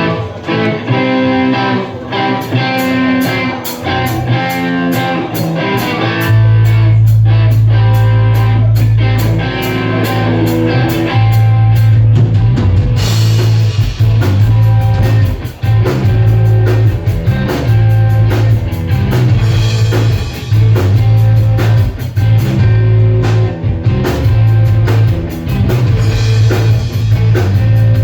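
Rock band playing live: electric guitar chords with the drum kit keeping a steady beat. A deep bass line comes in about six seconds in and runs under the rest.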